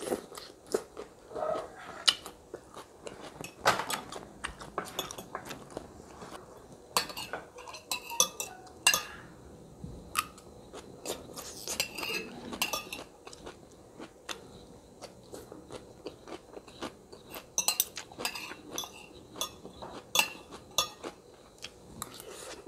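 Close-miked eating of asinan Bogor: crunchy chewing of crackers and raw vegetables, with a metal spoon clinking against the plate, many short irregular crunches and clicks.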